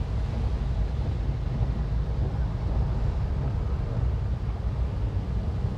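Steady low rumble and hiss of traffic on rain-wet roads, together with the car's own engine idling, heard from inside the car with a window open.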